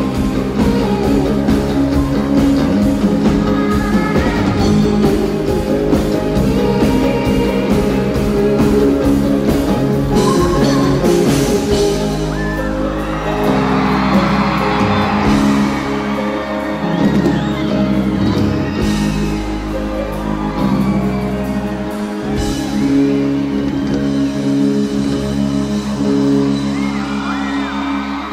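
Live electropop band playing: a woman singing lead over electric bass, electric guitar, synthesizer keyboards and a drum beat, with whoops and shouts from the crowd around the middle.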